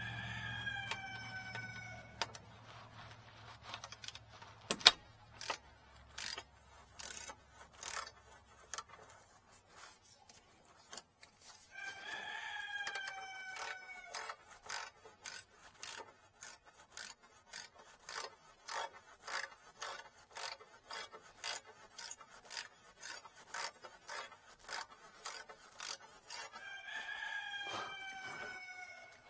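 A rooster crows three times, each call long and falling in pitch. Between the crows a hand ratchet clicks steadily at about two clicks a second as a spark plug is turned by hand.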